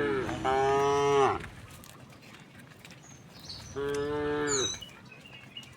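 Cattle mooing: a long moo at the start, then another about four seconds in.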